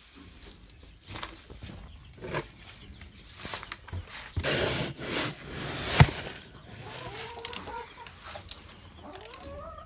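Handling of plastic feed bins and feed: rustling, scattered knocks and a sharp loud knock about six seconds in, with hens clucking softly in the second half.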